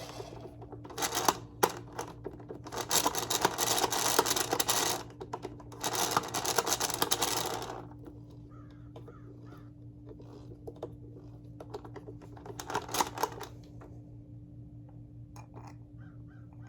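Hoover Convertible upright vacuum's wheels rolling and rattling in four clattering bursts, the middle two about two seconds each, over a steady low hum. The wheels have just had a drip of oil to quieten them and are still a little loud.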